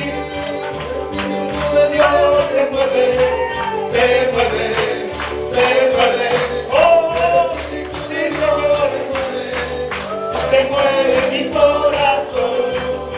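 Live worship music: singing over bass and a steady tambourine rhythm.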